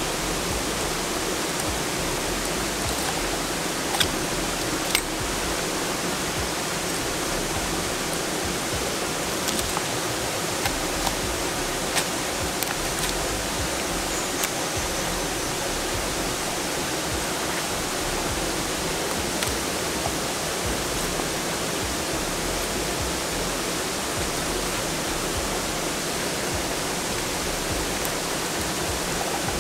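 Steady rush of flowing water, a stream or small waterfall, with a few faint short clicks.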